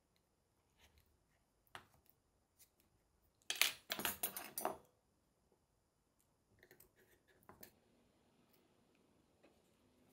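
Small metal hand tools handled over a cutting mat. There are faint ticks and scrapes of a microspatula working fibre cord into the gaps between stone tiles, and a short burst of metallic clatter about three and a half seconds in. Faint snipping and scraping of scissors follow.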